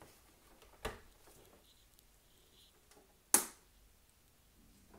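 Two sharp clicks from the controls of a 1960s Panasonic RQ-705 reel-to-reel tape recorder being worked, a light one about a second in and a much louder one a couple of seconds later. No transformer hum or other sound from the machine follows: it fails to power on.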